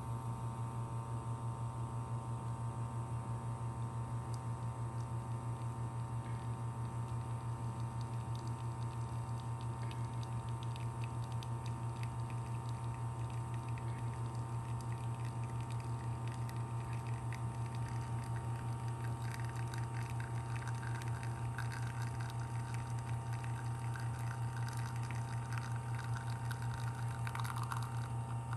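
Rotary pump of a Breville Dual Boiler espresso machine running steadily with a low hum while pulling a shot at brewing pressure. In the second half a faint crackling trickle of espresso running into the cup joins the hum.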